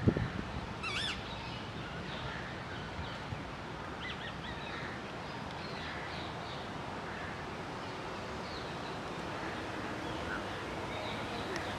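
Steady outdoor background noise with faint, scattered bird chirps; the clearest is a short high chirp about a second in. A couple of low knocks at the very start.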